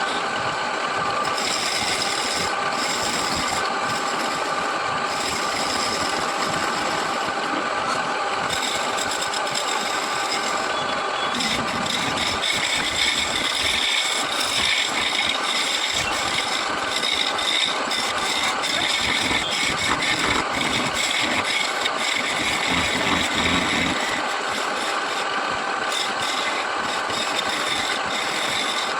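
Wood lathe running steadily: a motor hum made of several steady tones over a noisy whirr. It turns louder and rougher for a stretch in the middle, then settles back.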